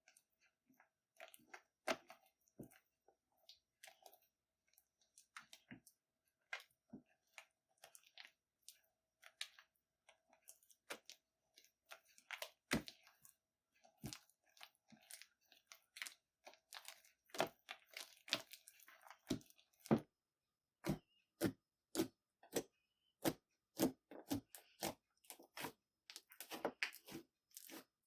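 Slime being squeezed and worked by hand, giving irregular sharp crackles and clicking pops from trapped air, sparse at first and denser and louder in the second half.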